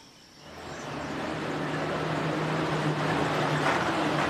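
Engine of a Colombian chiva bus, an old truck with a painted wooden passenger body, running steadily with a low, even hum. It fades in about half a second in and grows louder over the next second.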